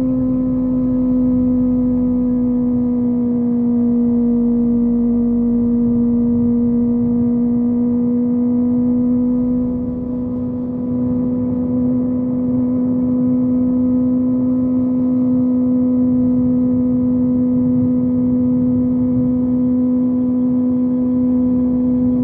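Kawasaki ZX-25R's inline-four engine running at a steady cruise, its high note holding nearly level with a slight dip in pitch a few seconds in, over wind rush.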